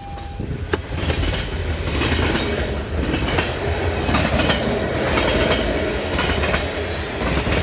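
Freight train cars rolling past close by: a steady rumble of wheels on rail, with clicks as the wheels cross rail joints.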